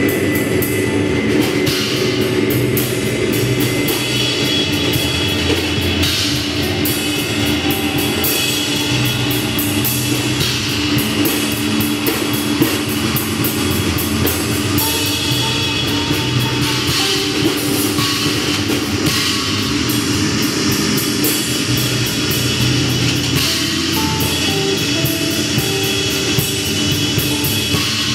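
Live improvised noise-rock jam of electric guitar and six-string bass through effects pedals over a drum kit: a loud, dense, unbroken wash of sustained distorted tones with fast drum and cymbal hits.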